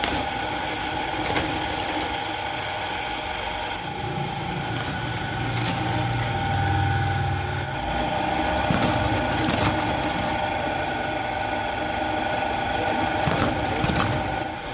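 Electric drill press running with a steady motor whine while its bit cuts holes through a plastic pipe to make the slotted filter section of a hand-pump well. The note gets heavier partway through as the bit bites in, and several sharp knocks come as the bit breaks through and the pipe is shifted.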